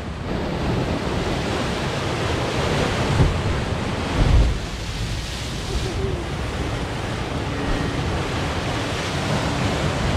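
Sea waves crashing and washing over rocks below, a steady rush of surf with wind on the microphone. Two heavier low thumps stand out about three and four and a half seconds in.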